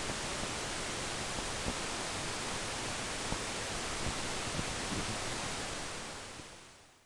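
Steady, even hiss like static, with a few faint ticks in it, fading out smoothly near the end.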